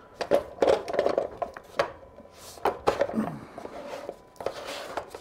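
Handling noise from an LED light's Fresnel adapter and barn doors: a string of clicks and knocks with scraping rubs as the flaps are moved and the focus is adjusted.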